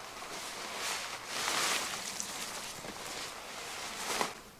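Silver-coated tarp rustling and crinkling as it is folded over and rolled up by hand, with a louder crinkle about four seconds in.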